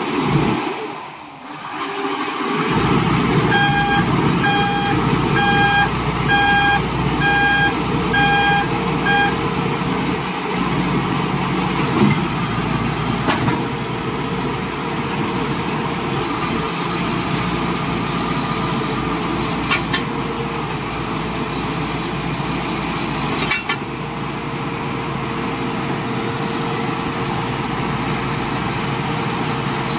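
Heavy-equipment diesel engine running steadily from about three seconds in. Over it, a motion alarm beeps about once a second, six or seven times, then stops.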